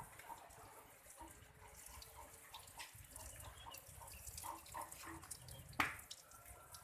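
Water dripping and splashing in small scattered drops while a caged black-naped oriole is bathed, with one sharp click about six seconds in.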